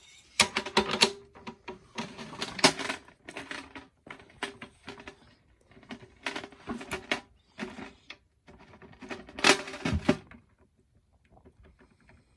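Metal snare drum hardware being handled: tension rods and screws clicking and rattling in irregular bursts, with the drum ringing faintly under them. The bursts stop about ten seconds in.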